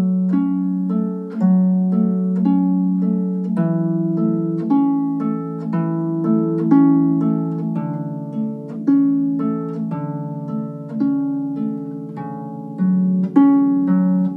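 Instrumental music: a slow pavane played on plucked strings, with each note struck sharply and dying away, in a steady, even pulse over a slowly changing bass line.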